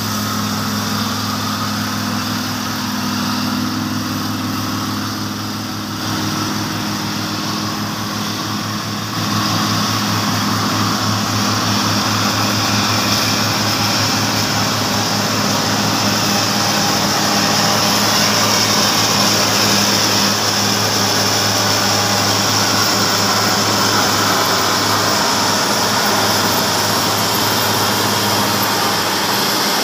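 Heavy diesel engines running steadily: an old loaded logging truck, then, from about nine seconds in, a crawler bulldozer running close by and louder.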